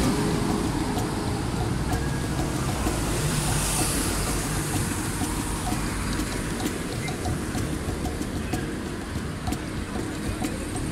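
Steady low rumble and hiss of a vehicle running close by, swelling about four seconds in, with faint light clicks growing more frequent toward the end.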